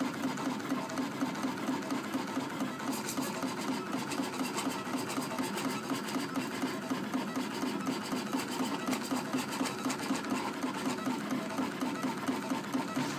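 USCutter vinyl cutter plotting a test pattern: its stepper motors drive the carriage and paper rollers back and forth in a steady, rapidly pulsing mechanical whirr.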